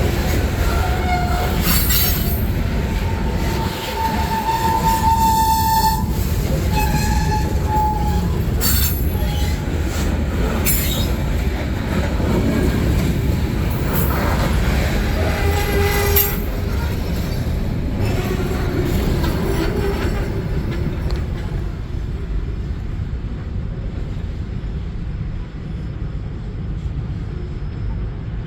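Freight train rolling past with a steady low rumble of wheels and cars, broken by short high metallic squeals and clanks from the wheels. The sound dies away over the last several seconds.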